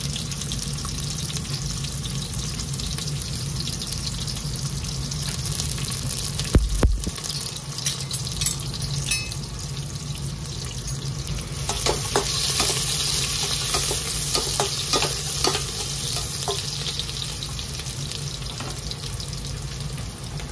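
Sliced onions frying in hot ghee in a steel pot: a steady sizzle with fine crackles, busier and brighter for a few seconds from about twelve seconds in. A single dull knock about six and a half seconds in.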